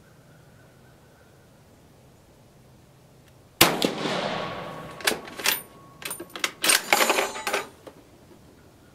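A single shot from a Carcano M38 short rifle in 6.5 mm, firing a cast-bullet handload, about three and a half seconds in, its report ringing off over about a second. Then a quick run of sharp metallic clacks as the bolt is worked to eject the case and chamber the next round.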